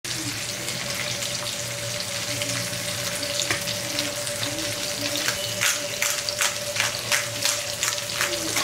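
Catla fish steaks frying in mustard oil in a pan: a steady sizzle with pops and crackles that grow more frequent and louder after about five seconds.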